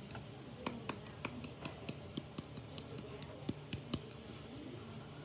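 A quick, irregular run of sharp light clicks or taps, about a dozen over three and a half seconds, the loudest near the end of the run, over a faint low steady hum.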